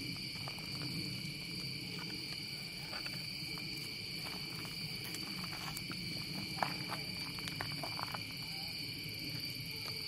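Steady night chorus of insects, several high continuous trilling tones, with a few soft crackles from the wood campfire in the middle.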